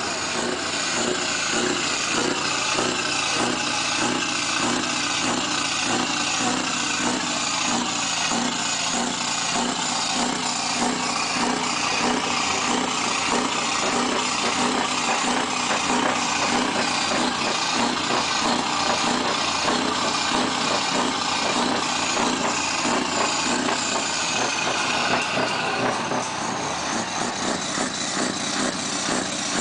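Scania R620's V8 diesel engine running steadily with an even pulsing; the sound shifts slightly and drops a little in level about 26 seconds in.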